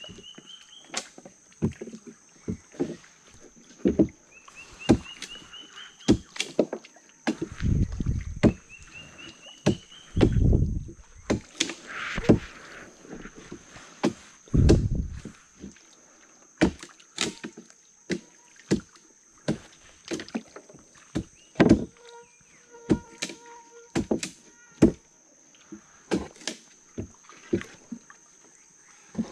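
A small boat being paddled: irregular sharp knocks of the paddle against the hull, with a few heavier splashing strokes in the water. A thin, steady high tone runs underneath.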